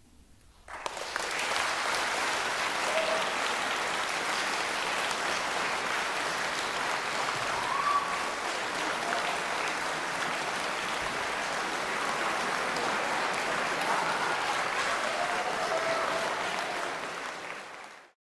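Audience applauding, breaking out suddenly after a brief hush at the end of a piece and holding steady, then fading out near the end.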